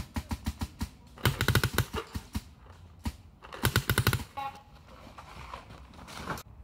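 Adrenalin Angel LCD paintball marker firing rapid strings of shots, about ten a second. It fires three bursts with a single shot between, and the strings end about four seconds in.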